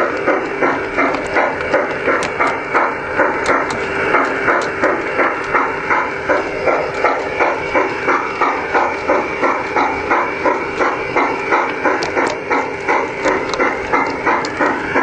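G-scale garden railway train running, with a steady rhythmic chuff about three times a second and light sharp clicks over it.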